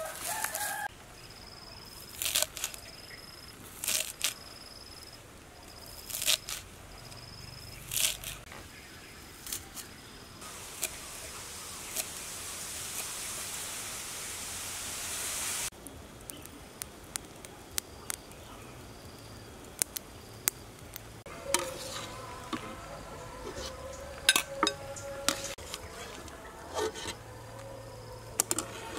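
A high insect trill pulsing steadily in the background, with scattered sharp knocks and clicks. Midway a hiss swells for about five seconds and then cuts off abruptly.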